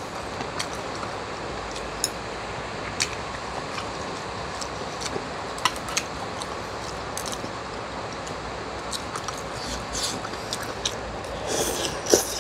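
Chopsticks clicking now and then against a glass dish, with a louder burst of noodle slurping near the end, over a steady hiss of heavy rain.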